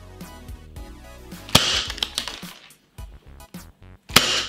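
KWC Model 357 CO2 airsoft revolver firing two shots about two and a half seconds apart, each a sharp crack, into a chronograph, with background music underneath.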